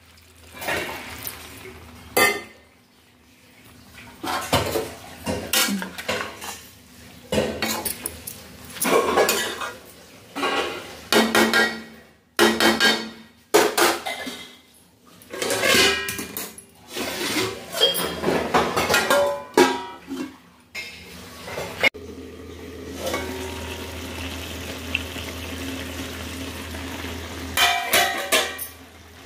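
A metal spoon stirring and scraping chopped turnip greens in an aluminium kadai, with repeated clanks and scrapes against the pan. About three-quarters of the way through the clatter gives way to a steady noise for several seconds, and a few more clanks come near the end.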